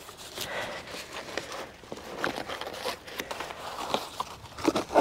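Scattered rustles and soft knocks of hands working at ground level, handling cardboard and soil around a planting spot.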